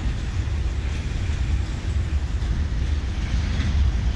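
Diesel freight locomotives running, a steady low rumble.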